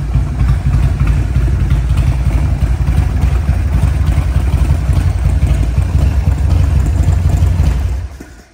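Buell M1 Cyclone's Harley-derived 1200cc air-cooled V-twin, fitted with a Buell race exhaust and Mikuni flatslide carburettor, running loudly at a steady idle. It is switched off near the end and the sound dies away quickly.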